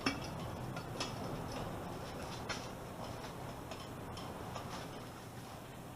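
A few faint, scattered metal clicks and taps as a homemade pin spanner is fitted onto the coilover's strut cap, its pins being lined up with the cap's holes, over a low steady background hiss.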